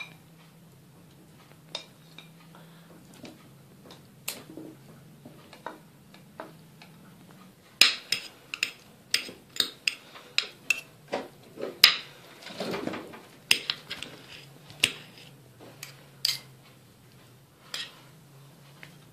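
A metal fork and metal slotted tongs clink and scrape against a ceramic plate while pulling boiled chicken meat off the bones. There are a few scattered taps at first, then a quick run of clinks from about eight seconds in, with a short scrape in the middle of it.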